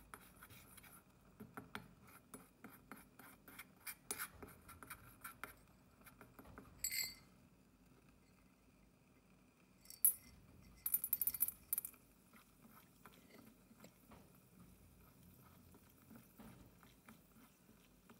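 Small metal spoon scraping and clicking against the inside of a miniature steel wok, spreading oil, with one ringing clink about seven seconds in. From about ten to twelve seconds comes the loudest part, a quick run of sharp clicks as dried popcorn kernels are tipped into the wok.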